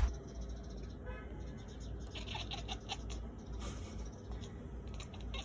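A cat scratching and shuffling about, a run of small scraping and clicking sounds over a low steady rumble.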